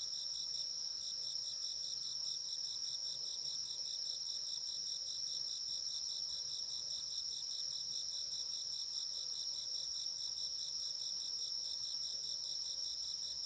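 Crickets trilling steadily: a continuous high, fast-pulsing chirr that does not let up.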